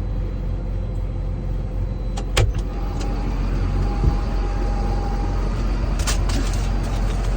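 A vehicle's engine running steadily, heard from inside the cab as a constant low rumble. There is a thin steady whine from about three seconds in, and short knocks about two and a half and six seconds in.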